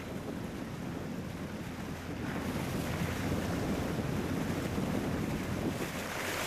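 Ocean waves and surf, a steady rushing wash of water that swells louder about two seconds in.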